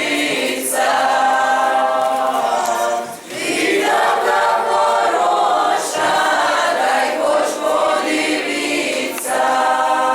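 A group of voices singing together in chorus, in long held phrases with short breaks about every three seconds.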